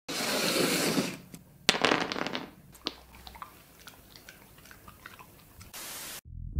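A corgi chewing dry dog treats: a run of small, crisp crunches. Before it come a rushing noise lasting about a second and a sharp knock, and near the end a brief burst of static hiss cuts off.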